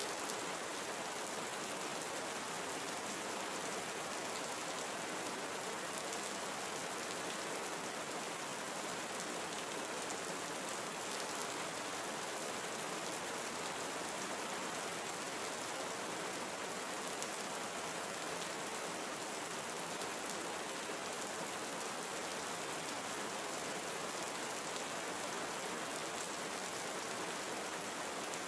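Steady tropical rainforest rain falling on foliage, an even hiss with scattered drop ticks.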